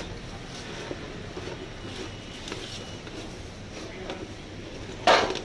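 Kitchen knife tapping as it cuts pineapple on a plastic cutting board, with small clicks from the clear plastic fruit boxes being handled. A short, loud clatter about five seconds in.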